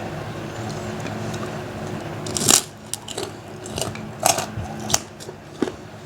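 Biting into a crisp kerupuk cracker, one loud crunch about two and a half seconds in, then chewing it with several sharper crunches. A steady low hum runs underneath.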